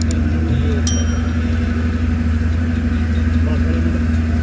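Tractor engine running steadily at idle, a low even drone. A short click at the start and a bright ding about a second in come from a subscribe-button animation.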